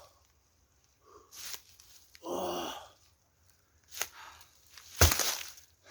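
A man's short, drawn-out voiced exclamation or sigh, then lighter scraping noises, and about five seconds in a single loud, sharp crack.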